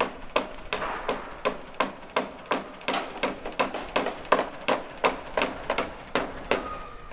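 Steady rhythmic tapping, about three sharp strikes a second.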